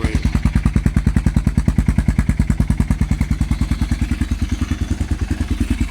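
Yamaha XT's single-cylinder engine idling through a GPR aftermarket exhaust with the dB killer removed: a loud, steady, even beat of about eight to nine exhaust pulses a second, with no revving.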